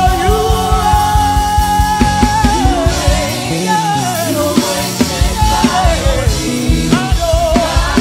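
Worship music from a live-streamed church service: a singer holds one long wavering note, then sings a falling line, over a band with a steady drum beat.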